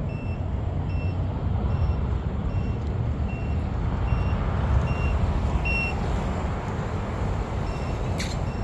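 Low-battery warning beeping on an FPV drone setup: short, high beeps about every two-thirds of a second that pause for a couple of seconds near the end, the sign of a spent flight battery. Under it runs a steady low rumbling noise.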